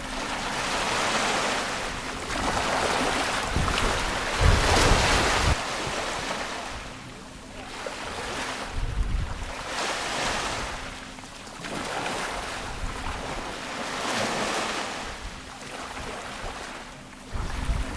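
Ocean waves breaking and washing on a shore in repeated swells every few seconds. Wind buffets the microphone in low rumbles several times.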